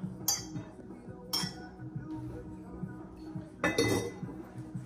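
A metal fork clinking against a pot twice as food is scraped from its bottom, then a short clatter of the lid going back on the pot near the end, over background music.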